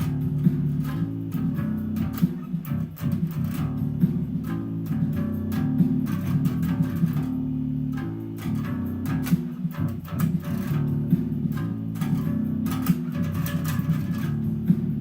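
Five-string fretless bass guitar playing a rhythmic verse bass line, a steady run of plucked notes that keep changing pitch.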